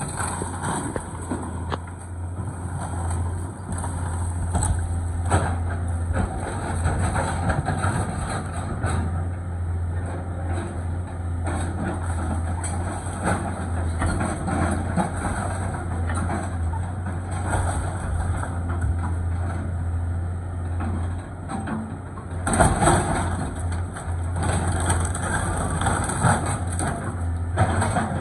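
Caterpillar 315B L hydraulic excavator's diesel engine running steadily as the machine tears into a wood-frame house, with cracking and crunching of splintering lumber and falling debris. A louder crash comes late on.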